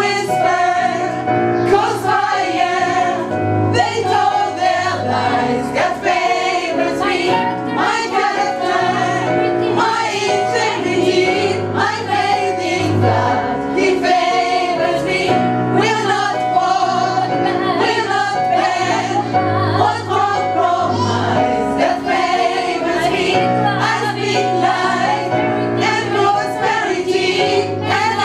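Live gospel choir singing with band accompaniment, over a steady, repeating bass line.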